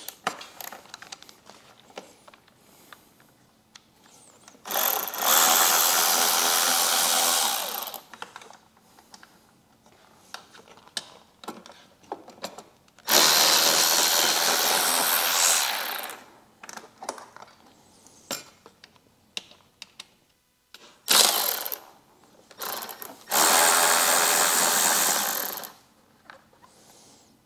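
Cordless power tool spinning an 11 mm wobble socket to back out the bolts holding a motorcycle fairing's speaker pod. It runs in three steady spells of about three seconds each, with one short blip between the second and third, and light clicks of handling in the gaps.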